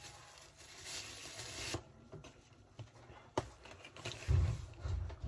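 Plastic bubble wrap crinkling and rubbing as it is handled for the first couple of seconds. A sharp click follows, then a few dull low bumps near the end.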